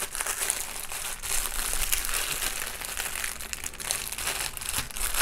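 Clear plastic packaging crinkling continuously as a packet of bagged diamond-painting rhinestone drills is gripped and lifted.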